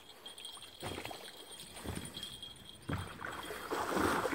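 Water splashing and sloshing as a huge wels catfish rolls and thrashes at the surface on the end of the line, building up near the end. Before that come a few dull low thumps about a second apart.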